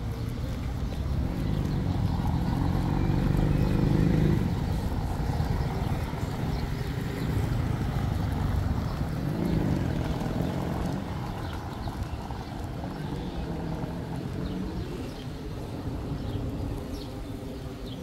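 Road traffic: motor vehicles passing over a steady low rumble, loudest about three to four seconds in and swelling again around nine to ten seconds.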